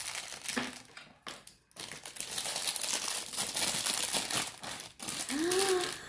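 Shiny plastic wrapper crinkling and crumpling in the hands as it is pulled open to free a small toy doll, the crackle stopping and starting.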